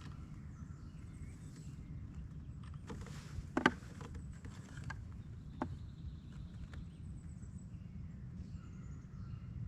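A few sharp knocks and clicks against a kayak, the loudest a double knock about three and a half seconds in and another near six seconds, over a low steady rumble.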